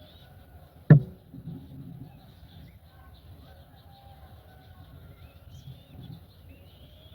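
A single sharp thump about a second in, over faint bird chirps and a few short rising whistled calls.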